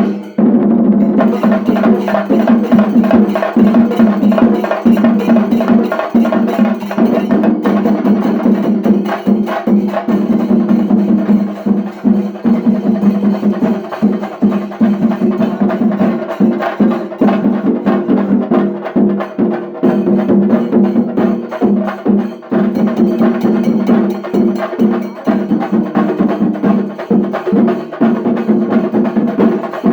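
Shinkari melam ensemble playing loud, fast, dense strokes on chenda drums with ilathalam cymbals. A steady held tone sounds under the drumming.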